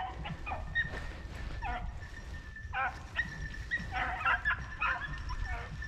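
Beagles baying on a cottontail's trail: a string of short, yelping hound calls given irregularly, the sign that the pack is running the rabbit's scent.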